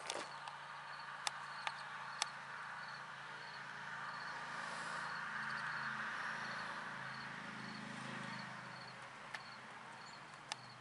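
Quiet outdoor background: a steady hiss with a faint, evenly repeating high chirp, broken by a few sharp clicks, three in the first couple of seconds and two near the end.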